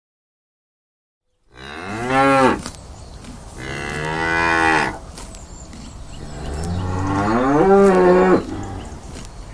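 Cow mooing three times, starting about a second and a half in; the last moo is the longest and loudest and rises in pitch.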